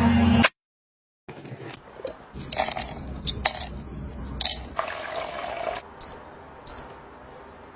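A high-speed blender's motor runs briefly, then cuts off. Light clicks and rustles follow as dried rosebuds and hibiscus are put into a glass kettle, and then the MODONG electric health kettle's touch panel gives two short high beeps as its button is pressed.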